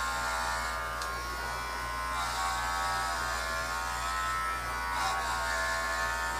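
Cordless pet hair clippers buzzing steadily as they are run through a dog's thick, curly coat, the buzz dipping slightly in pitch now and then.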